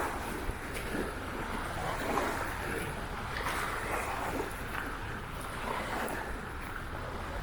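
Small waves washing against the shore of a salt lagoon, with wind rumbling on the microphone.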